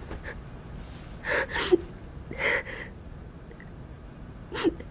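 A young woman sobbing in short, catching, gasping breaths with a little voiced whimper: a pair of sobs about a second and a half in, another about a second later, and a last short one near the end.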